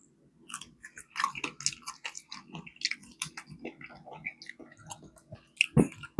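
A person chewing fried chicken: a steady stream of small, irregular mouth clicks and smacks, with one sharper, louder stroke near the end.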